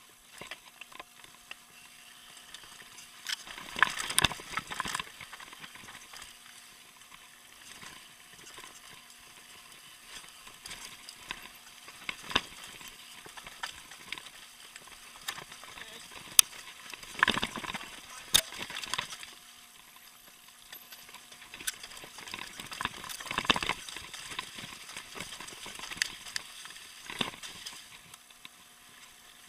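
Mountain bike descending a rocky gravel trail: tyres crunching over loose stone, with the bike rattling and clattering in bursts over the rougher sections, several times.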